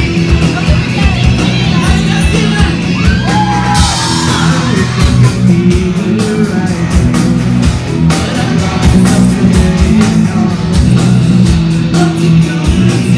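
A rock band playing live: electric guitars, bass guitar and drums, with a singer's vocals.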